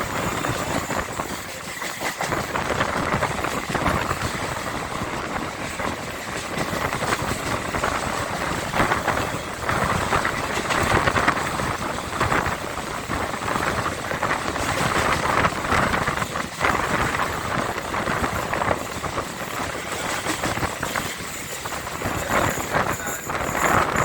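Train running along the track: a steady rumble with rapid, irregular clatter of wheels on the rails.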